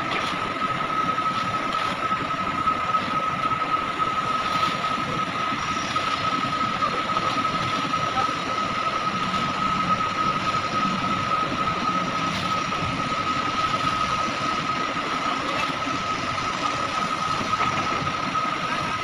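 Heavy machinery running steadily, a constant high whine over a broad, even rumbling noise.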